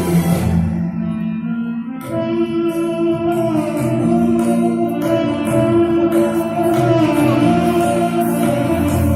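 Music with long held notes; the texture changes about two seconds in.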